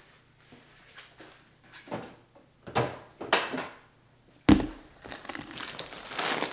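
Kitchen handling sounds: rustling and small knocks as groceries and containers are moved. About four and a half seconds in comes a single sharp knock, a plastic protein-powder tub set down on a granite countertop, followed by more rustling.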